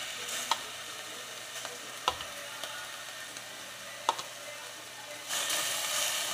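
Beef and onion sizzling in oil in a stainless steel pot, with a few sharp clicks of metal tongs as more meat is dropped in. The sizzle grows louder about five seconds in.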